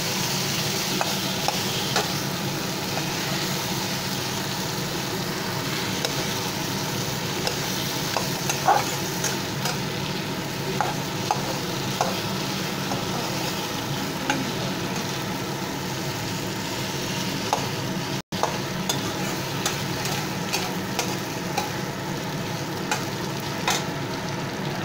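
Hilsa fish head and diced brinjal sizzling as they fry in mustard oil in a metal kadai, with a metal spatula scraping and clicking against the pan as they are stirred.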